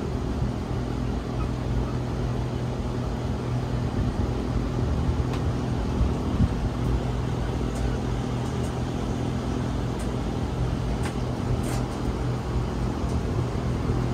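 Steady low mechanical hum with a constant drone, and a few faint ticks in the second half.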